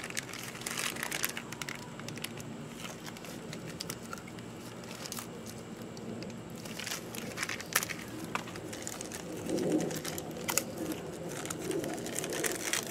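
Small handling noises: a paper parts packet being rustled and crinkled, with scattered light clicks and taps. A faint low pitched sound comes in about ten seconds in.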